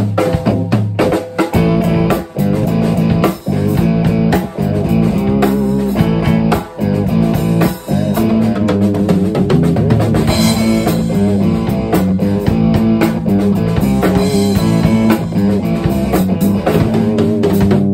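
Rock music: a drum kit played with steady hits and cymbals over a sustained guitar and bass backing.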